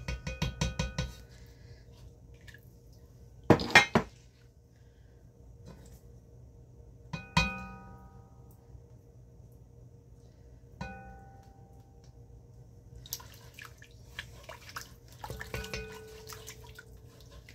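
Utensils knocking and clinking against an enamelled cast-iron Dutch oven. There is a fast run of taps at the start, two sharp knocks a little before 4 seconds in, and single ringing taps near 7 and 11 seconds. From about 13 seconds a spatula scrapes and clinks as the broth is stirred.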